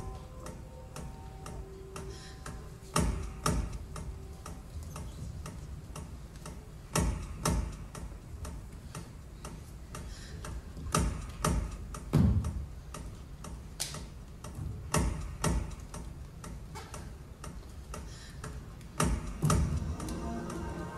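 Sparse electronic score built on clicks: a cluster of sharp, loud clicks about every four seconds over a faint steady ticking. A few held tones fade out in the first seconds, and music with sustained tones comes in near the end.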